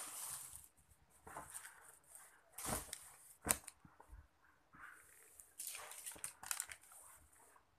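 Plastic shopping bags and clothes being handled, in irregular rustling, crinkling bursts, with a couple of sharp clicks about three seconds in.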